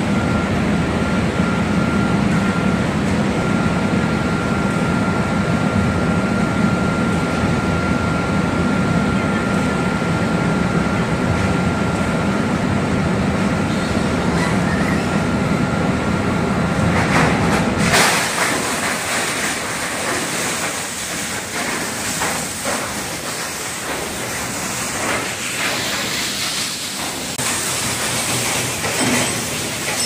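Cross flow chain shredder running and shredding washing machines and refrigerators, with a steady heavy drone and a thin steady whine. About halfway through, the drone drops away and a clattering rattle of many small knocks with a hiss takes over, as the shredded metal pieces come through.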